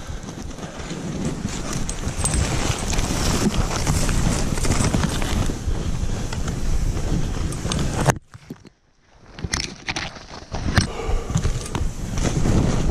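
Skis running and turning through deep snow with wind buffeting the camera microphone, a dense rough rush. About eight seconds in it cuts out suddenly to near silence for a moment, then comes back with scattered clicks and knocks.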